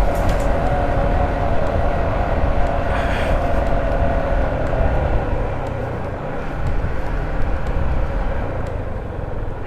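Yamaha MT-15's single-cylinder engine running while the bike is ridden, with a heavy wind rumble on the microphone. The engine tone drifts slowly lower over the first half, as the bike eases off.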